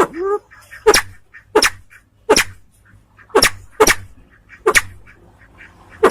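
Recorded calls of a crested fireback pheasant (sempidan biru), of the kind played as a lure for wild birds. A short call that bends in pitch opens the sequence, followed by about seven sharp, clipped notes repeated irregularly every half second to a second.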